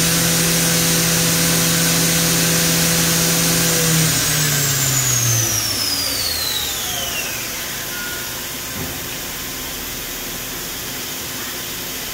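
Spindle of a 2010 Feeler VMP-1100 CNC vertical machining center running at speed with a steady hum and a high whine. About four seconds in it spins down, all its tones falling in pitch together until it stops some three seconds later. A steady hiss continues afterwards.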